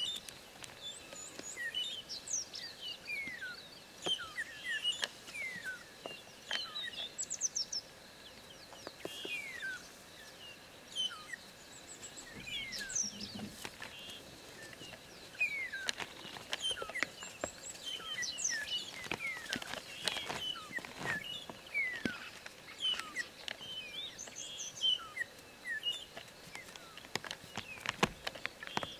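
Birds calling throughout: many short, descending whistles and chirps from several birds, with scattered clicks and knocks that come thickest around the middle.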